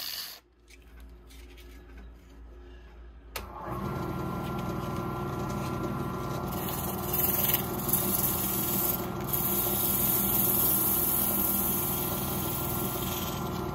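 Small benchtop wood lathe (1/2 HP motor) running steadily with an awl's wooden handle spinning in its chuck. The motor hum comes in sharply about three seconds in. In the second half, sandpaper held against the turning handle adds a hiss.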